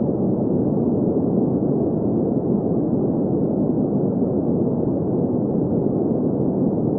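Green noise: a steady, even hiss with its weight in the low-middle range and no treble, holding at one level without change.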